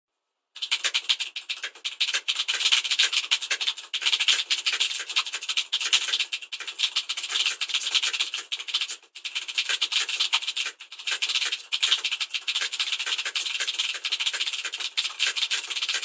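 Fast touch-typing at about 130 words per minute on a mechanical keyboard with clicky Cherry MX Blue switches: a dense, rapid stream of sharp key clicks. It starts about half a second in and breaks off briefly about nine seconds in.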